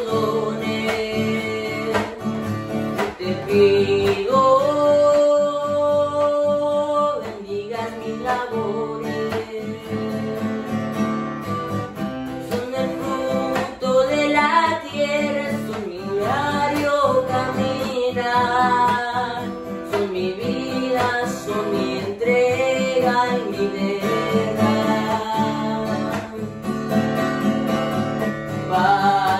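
A boy singing a praise song, accompanying himself on a strummed acoustic guitar.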